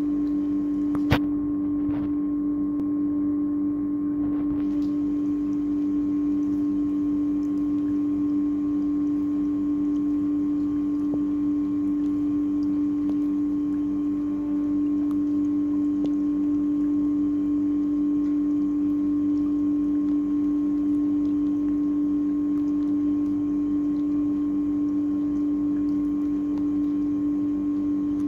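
A steady, unchanging hum: one strong low tone with fainter tones above it, and a single sharp click about a second in.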